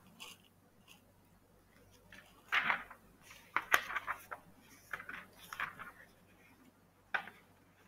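Faint, scattered clicks and clatters of small objects being handled, with a few short muffled noises in between.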